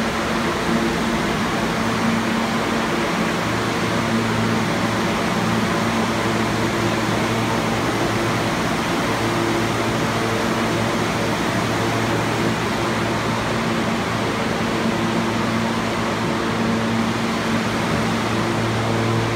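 A New York City Subway train standing in the station with its doors open: a steady hum from its air-conditioning and auxiliary equipment, with a few low steady tones under an even rushing noise.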